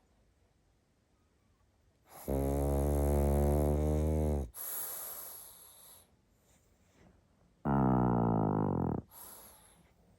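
A pug snoring: two loud, buzzing snores, the first about two seconds long and the second shorter. Each is followed by a softer, airy breath.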